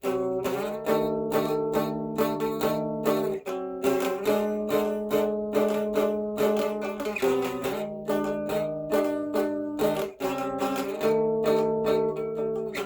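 Guitar strummed in a steady rhythm of chords, the chord changing every few seconds.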